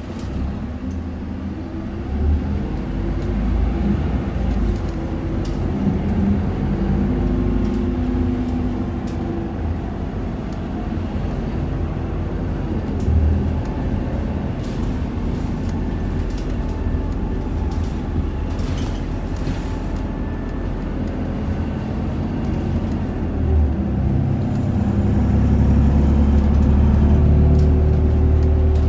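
Isuzu Erga city bus running along the road, heard from inside the passenger cabin: a steady low engine and drivetrain rumble with road noise, growing louder for a few seconds near the end.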